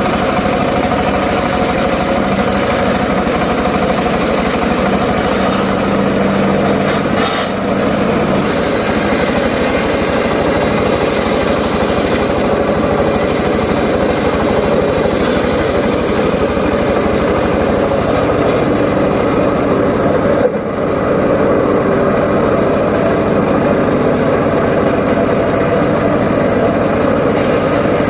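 Engine of a homemade circular saw rig running steadily, with a brief dip in sound about twenty seconds in.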